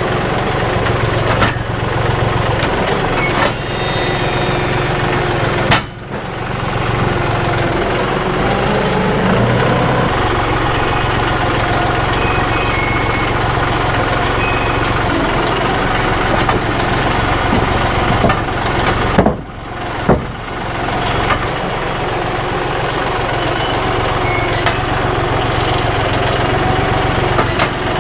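Tractor engine running steadily, its pitch shifting briefly about nine seconds in.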